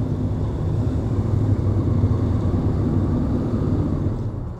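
Honda Transalp 650's V-twin engine running at low speed as the motorcycle rolls across a ferry's vehicle deck and pulls up, a steady low hum that eases off near the end.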